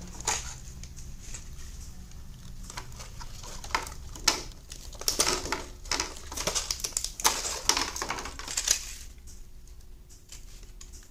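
Clear plastic compartment box being handled and its lid opened: a run of plastic clicks, taps and crackles, busiest from about four to nine seconds in, then quieter.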